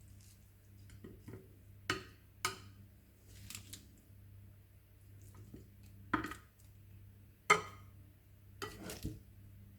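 Serving utensils clinking and tapping against a plate and salad bowl while salad is plated: about six separate clinks, the sharpest about three quarters of the way through.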